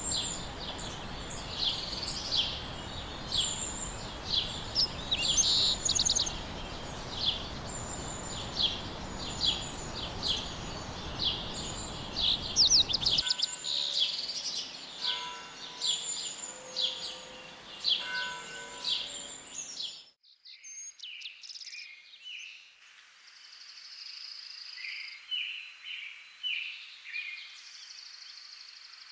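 Birdsong: many birds chirping and trilling in quick, repeated high calls over a steady rushing background noise that drops away about 13 seconds in. About 20 seconds in it cuts abruptly to a thinner, sparser set of chirps.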